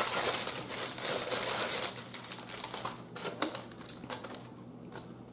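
A paper napkin rustling and crinkling in the hands. Then a few sharp clicks and taps from handling a foam takeout container to pick up an egg roll.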